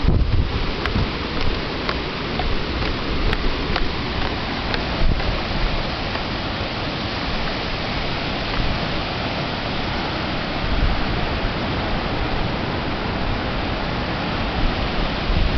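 Ocean surf breaking on the beach, heard as a steady, even rush of waves.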